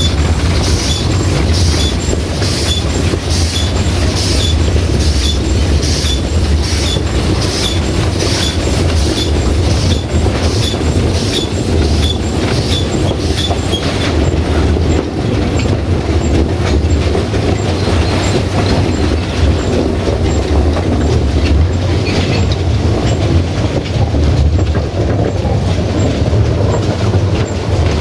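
Narrow-gauge steam train heard from aboard while running: a steady low rumble from the coaches, with a regular beat of short hissing strokes about twice a second that stops about halfway through.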